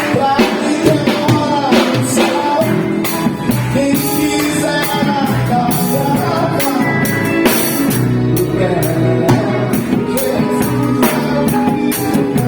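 A live Christian rock band playing a baião: drum kit keeping a steady beat under electric guitar, bass and keyboards, with singing.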